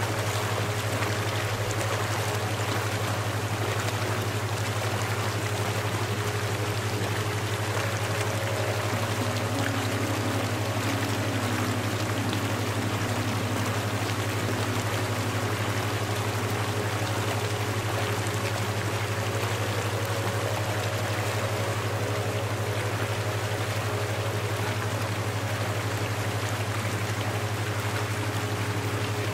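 Steady running water, like a flowing stream, over a constant low hum, with faint held notes that change now and then.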